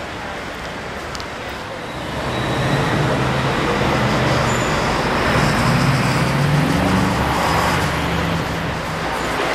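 City street traffic at an intersection: car engines and tyres, with the traffic noise getting louder about two seconds in.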